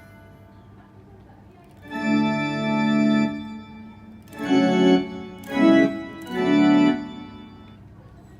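Roland GR-20 guitar synthesizer sounding an organ-like patch: a held chord of a second and a half, then three short chords in a row.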